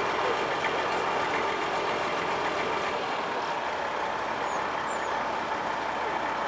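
Crane truck's engine running steadily at a constant speed while it holds and lowers a load on its cable.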